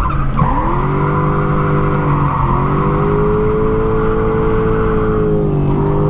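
Lexus IS200's swapped-in Toyota 1UZ V8 under throttle on track. The revs dip and climb back twice in the first few seconds, hold steady for a few seconds, then fall away near the end.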